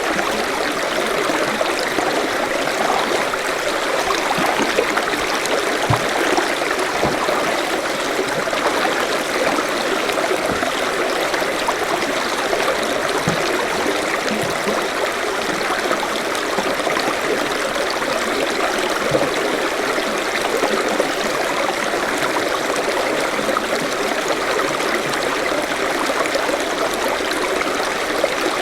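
A forest stream running steadily over stones, with small gurgles and plops through the rush of water.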